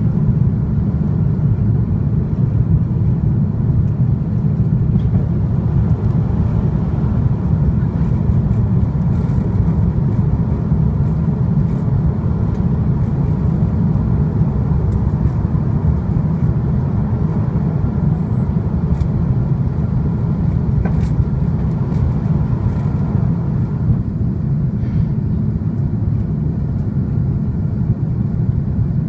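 Jet airliner climbing just after takeoff, heard from inside the passenger cabin: a steady, loud, low roar of the engines.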